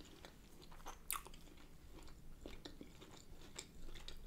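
Close-miked chewing and wet mouth clicks of someone eating a shrimp boil, with a sharp click about a second in.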